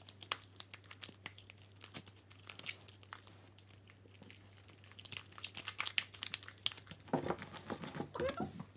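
Freshly activated glue slime being kneaded and stretched by hand, giving off irregular sticky crackles and small pops that get busier toward the end. The slime is still slightly sticky, partway through activation.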